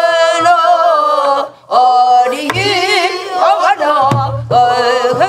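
Voices singing a Korean Namdo folk song in long held notes with wide vibrato, over buk barrel drums struck twice, about two and a half and four seconds in.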